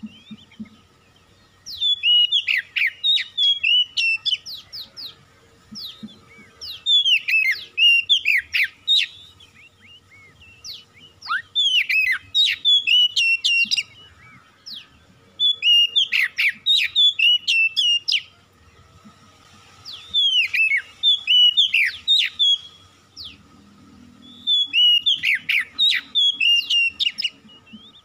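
Oriental magpie-robin (kacer) singing: six bursts of quick, varied whistled phrases, each two to three seconds long, with short pauses between them. It is a full, busy song of the kind played to provoke a quiet kacer into singing.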